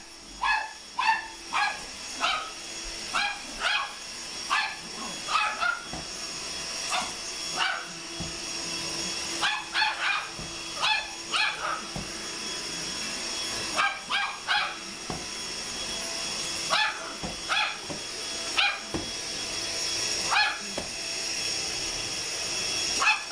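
Chihuahua barking repeatedly at a running vacuum cleaner, in quick runs of short barks separated by brief pauses, over the vacuum's steady whine.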